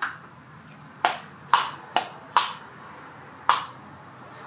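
Five sharp clicks and knocks, spread over about two and a half seconds, from hard parts being picked up and handled.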